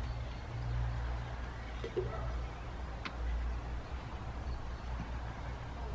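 Outdoor background of a steady low rumble with a few faint bird calls, and a light knock about three seconds in as a camping stove cup and kit are handled on the grass.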